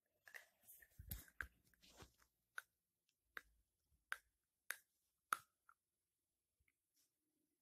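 Faint clicks of a metal spoon against a small ceramic bowl as honey is added to mashed avocado and yogurt. A few soft scattered ticks are followed by five sharp taps, about one every two-thirds of a second.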